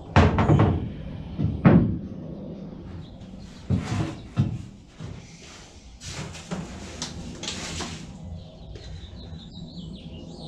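Bare chrome 22-inch Cadillac Escalade wheels being set down in the painted steel bed of a pickup truck: heavy thuds and clanks, two loud ones near the start and two more about four seconds in, then fainter knocks.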